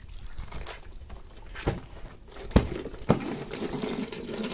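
Plastic bucket being tipped and handled, knocking sharply three times, with water beginning to slosh and pour inside it near the end.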